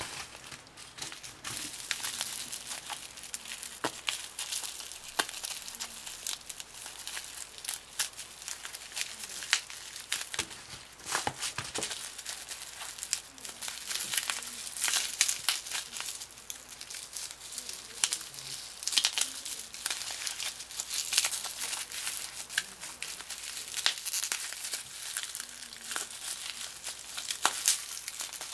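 A shiny wrapper handled and unwrapped by hand, crinkling and crackling irregularly with small tearing sounds.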